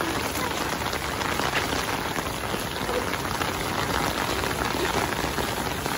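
Steady rain falling on a wet concrete courtyard.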